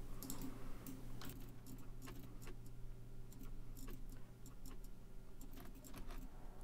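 Faint, irregular clicks of a computer keyboard and mouse being used, over a low steady hum.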